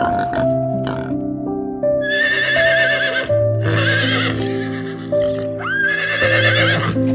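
Horse neighing: three loud whinnies with a shaking, wavering pitch, one opening with a sharp upward sweep, over background music of steady held notes.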